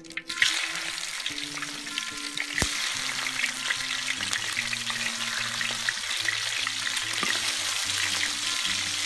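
Fish head pan-frying in hot oil in a large iron wok: a steady sizzle that starts about half a second in as the fish goes into the oil. A single sharp tap about two and a half seconds in.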